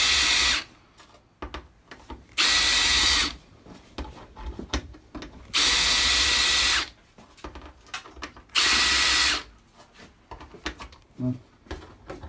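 Hand-held drill with a twist bit cutting into a TV's sheet-steel back panel, run in four short bursts of about a second, roughly three seconds apart, opening and countersinking a screw hole. Small clicks and scrapes come between the bursts.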